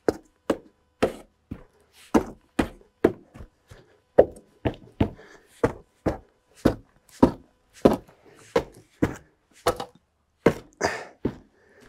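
Repeated sharp knocks, about two a second, as the raised excavator stick resting on stacked timber cribbing is tapped to test how steady it sits; no cracking comes from the cribbing.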